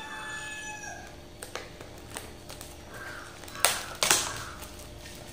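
A rooster's crow trails off in the first second, then a few sharp clicks and rustles of a small cardboard box and its plastic wrapping being opened by hand, with two loud snaps about half a second apart later on.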